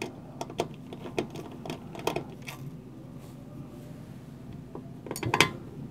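Small irregular clicks and ticks of a screwdriver bit turning a Torx screw out of a laptop's metal heat spreader, with a cluster of louder clicks about five seconds in.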